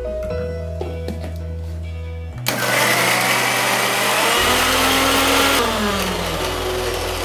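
A Preethi electric mixer grinder starts suddenly about two and a half seconds in and runs for about three seconds, grinding roasted coconut masala with a little water into a paste. It then switches off, and the motor winds down with a falling whine.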